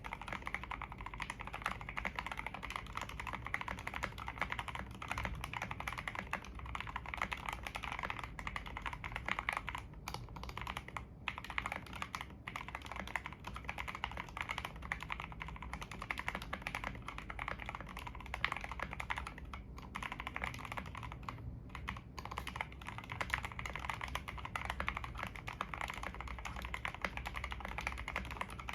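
Steady, fast typing on a Readson 61 60% mechanical keyboard after modding: Outemu Black linear switches lubed with Krytox 205g0, a tape mod, foam dampening and chalk ABS OEM-profile keycaps. The keystrokes run densely, with a few brief pauses.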